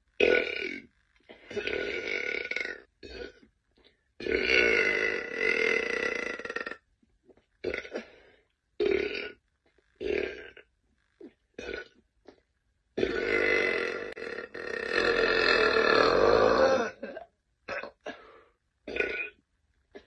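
A woman burping over and over: a string of short burps, with long drawn-out ones about four seconds in and again from about thirteen to seventeen seconds in.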